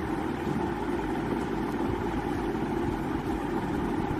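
Steady background hum and hiss, like a running motor, with no separate events.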